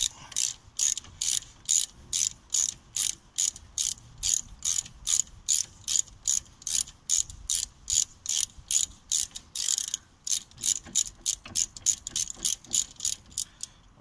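A ratcheting driver with a 7mm hex bit clicking steadily, about three clicks a second, as it is worked back and forth to wind out a brake caliper bolt. Near ten seconds in there is one longer run of clicks.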